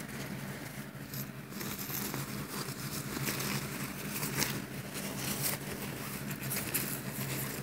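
Thin nylon backpack fabric rustling and crinkling as it is handled and folded, the rustle picking up about a second and a half in, over a steady low hum.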